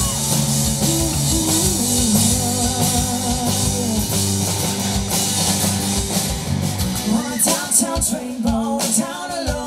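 Live rock band playing an instrumental stretch on guitars over a sustained bass line. About seven seconds in the bass drops away and a wavering lead line with sharp percussive hits comes to the front.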